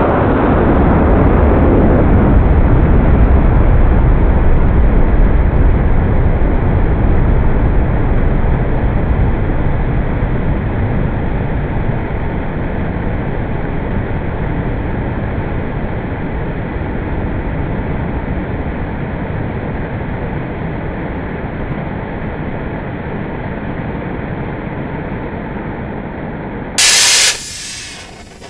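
Cut-open Estes solid-fuel model rocket engine burning: a steady rushing noise, heavy in the low end, that slowly fades as the burn dies down. Near the end there is a brief loud hiss, then the sound drops away.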